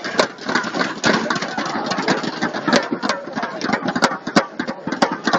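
Indoor arena crowd between badminton rallies: a steady din of many spectators, with scattered sharp claps or knocks.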